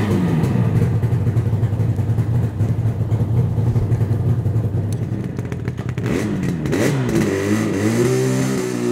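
Yamaha RD250 two-stroke parallel-twin engine idling steadily. From about six seconds in it is revved up and down, its pitch rising as the bike pulls away.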